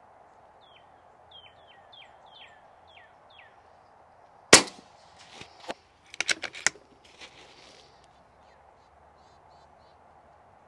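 A single shot from a moderated .25-calibre RAW HM1000X PCP air rifle: one sharp crack about four and a half seconds in, followed by several quieter clicks. Before the shot a bird chirps about seven times, in short falling notes.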